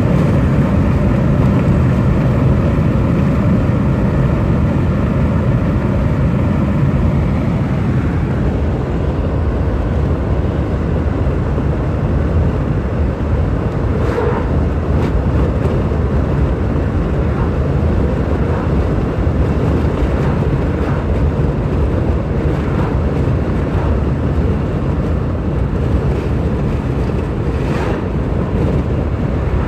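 Steady low rumble of a car driving at highway speed, heard inside the cabin: engine and road noise.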